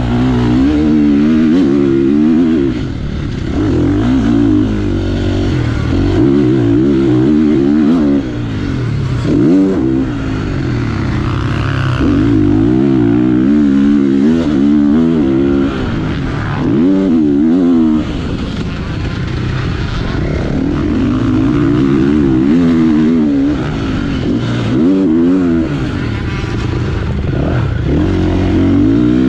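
Motocross bike engine running hard, heard from the onboard camera, its pitch climbing and dropping again and again as the rider accelerates down the straights and rolls off the throttle for the corners.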